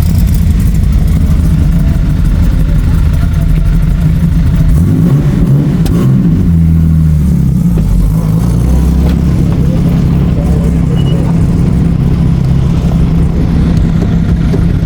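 Motor vehicle engines running steadily with a deep rumble, one of them changing pitch as it revs for a few seconds around the middle.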